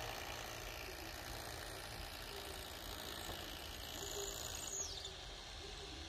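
Faint, steady outdoor background noise with a single high bird call about four seconds in, held briefly and then sliding down.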